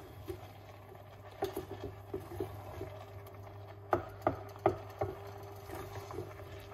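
Wooden spoon stirring sliced vegetables in a stainless steel pan: soft scraping and tapping, with a few sharper knocks of the spoon against the pan about four seconds in. A low steady hum runs underneath.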